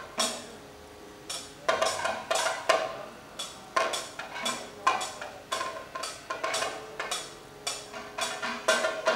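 Kathakali percussion accompaniment: maddalam barrel drum played with the hands, with ringing metallic strikes, in uneven strokes, some bunched together.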